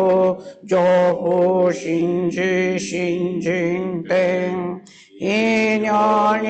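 Buddhist sutra chanting in Japanese: a voice intoning the text on long, steady held notes, pausing briefly for breath about half a second in and again near five seconds in.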